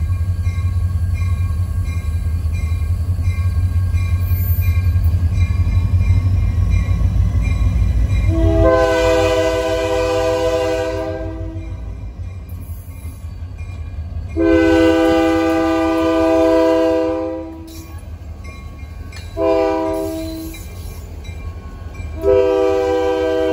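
Kiamichi Railroad diesel freight locomotive approaching with a heavy low engine rumble. Then its air horn sounds the grade-crossing signal: two long blasts, a short one, and a final long one that begins near the end.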